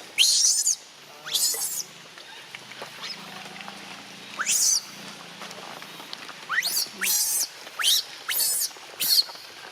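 A newborn animal crying in short, very high-pitched squeals that sweep sharply in pitch, about eight of them, spaced irregularly.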